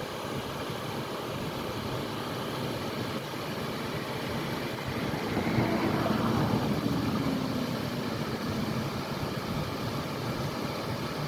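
Steady rush of a waterfall. About halfway through a louder swell comes and goes, carrying a low tone that falls in pitch.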